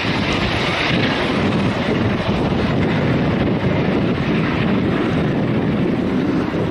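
Emirates Airbus A380's four jet engines rumbling steadily as the airliner passes low on final approach, mixed with heavy wind buffeting on the microphone.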